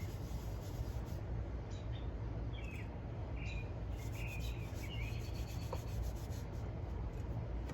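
Cloth rag rubbing Brasso polish over a cheap cast-metal coin bank in repeated strokes, over a steady low hum. Birds chirp briefly now and then in the background.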